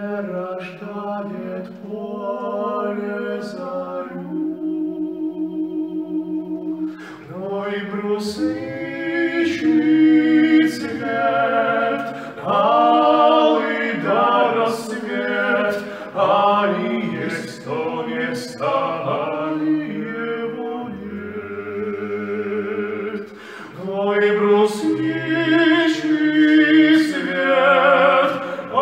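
Two men singing a folk song unaccompanied, in harmony, with long held notes.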